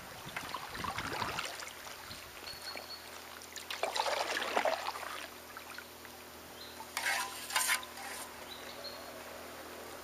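Kayak paddle strokes in shallow water: the blade dipping and pulling with splashing and dripping, twice. Two short knocks follow a little after the middle.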